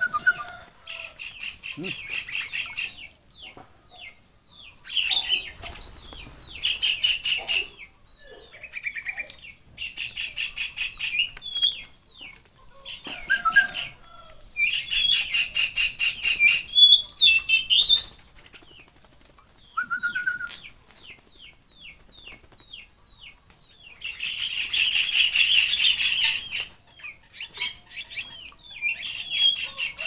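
Several Javan mynas (jalak kerbau) give harsh, rapid rasping calls in repeated bursts of a second or two, with short falling chirps in between.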